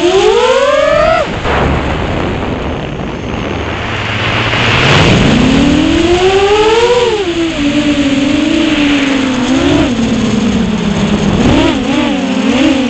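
Six-inch FPV quadcopter's 2407 brushless motors and props whining, the pitch climbing sharply in the first second, then falling low as the throttle drops. Around five seconds in it surges up again, then settles into a wavering hum with quick throttle blips near the end.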